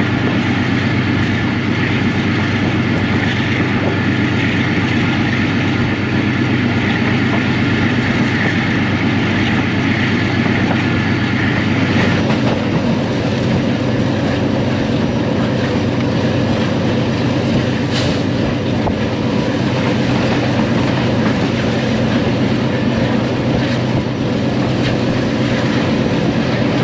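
Passenger train running at speed, heard from an open carriage doorway: a steady loud rumble and rattle of the coaches' wheels on the track, with one sharp click about eighteen seconds in.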